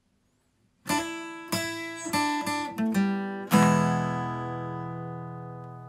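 Intro music on acoustic guitar: a few strummed chords and picked notes begin about a second in, then a last chord is left to ring and slowly fade.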